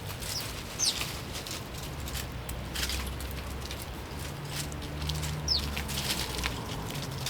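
Sparrows giving a few short, high chirps that sweep down in pitch, over scattered small clicks and a low steady hum.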